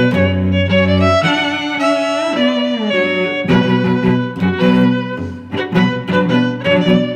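Background music of bowed strings, violin and cello, playing a melody of held notes.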